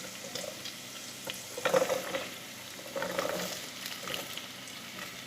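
Sliced onions and small shallots frying in hot coconut oil in a pan, sizzling steadily, with a few louder spells of stirring about one and a half and three seconds in.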